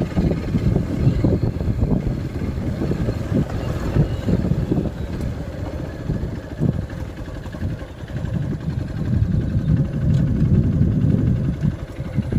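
A vehicle driving on a rough off-road track: low engine rumble mixed with jolts and knocks, its loudness rising and falling unevenly.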